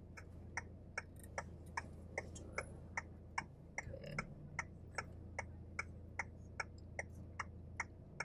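Car's turn-signal indicator ticking steadily inside the cabin, about two and a half clicks a second, over the low steady hum of the idling engine.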